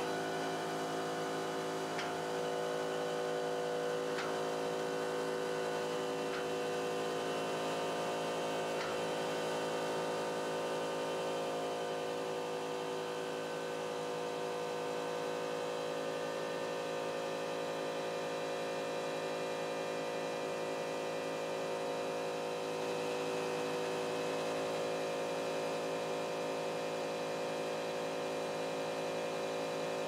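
CNC pen-drawing machine running, its motors making a steady hum of several tones, with a few faint ticks in the first ten seconds.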